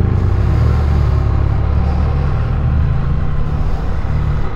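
Can-Am Spyder F3 Limited's Rotax 1330 three-cylinder engine running steadily at low revs, an even low drone with no change in pitch.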